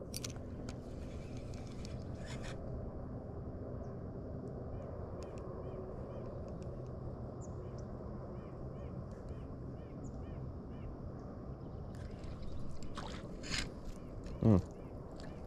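Steady low outdoor background on open water, with a faint repeated chirping of about two a second through the middle. A few sharp clicks come near the end, and a short, loud pitched voice-like sound comes about a second before the end.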